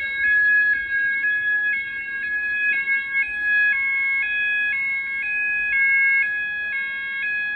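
XP95 fire alarm sounders going off continuously: a steady tone under a warbling two-tone that alternates about twice a second, with several sounders overlapping. The alarm is still sounding and has not been reset.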